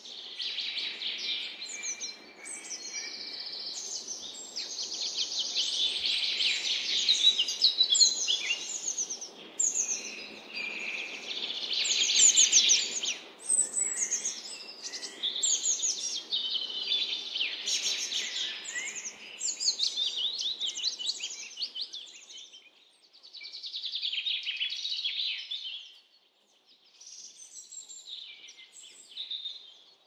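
Several forest songbirds singing at once in a dense chorus of overlapping trills and chirps, thinning out in the last third.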